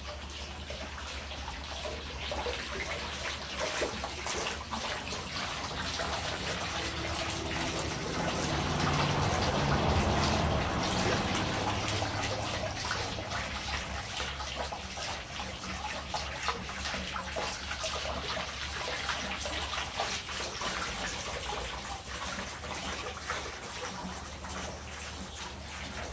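Spring water trickling and splashing steadily into a stone pool, a little louder about ten seconds in.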